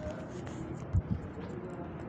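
Two dull, low thumps in quick succession about a second in, over a steady background hiss: a bent leg being set down on a padded treatment table.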